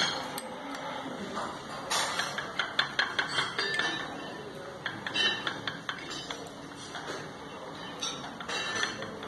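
Cutlery clinking against china bowls and plates: a run of quick small clinks and taps, thickest a couple of seconds in, with a few more later.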